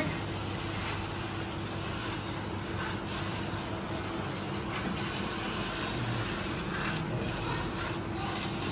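Small line-following robot's geared DC motors whirring steadily as it drives along the track, with one constant tone over a low hiss and a few faint taps.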